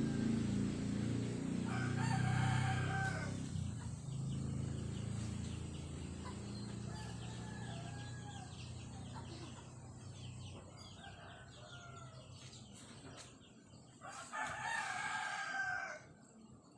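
A rooster crowing twice, once about two seconds in and again near the end, each crow a drawn-out call of a second or two. Under the first half a low hum fades away, and faint bird chirps come between the crows.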